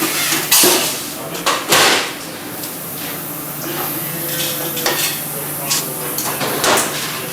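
Factory-floor noise: scattered metal clanks and clatters, the loudest two near the start, over a steady machine hum.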